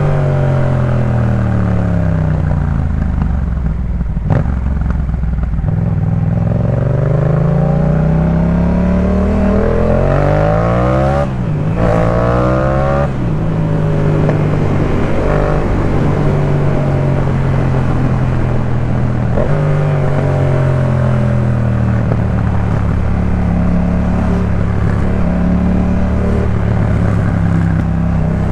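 2018 Yamaha MT-07's parallel-twin engine through a Jeskap K4 full aftermarket exhaust, under way: the revs drop over the first few seconds, then climb hard with a quick gear change about eleven seconds in, and after that the engine runs at a steadier speed with small throttle rises and falls.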